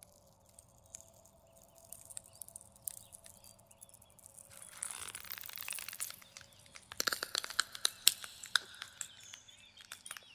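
Crackling and snapping sound effects, like wood and twigs cracking as the trees grow. They start as scattered clicks and thicken about halfway into a dense run of sharp cracks. A faint steady drone fades out underneath at about the same point.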